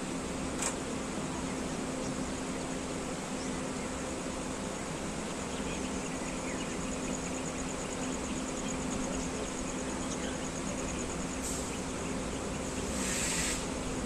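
Steady outdoor background hiss with a faint low hum and insects chirping in a fast, even high-pitched rhythm through the middle; a short hissing rush comes near the end.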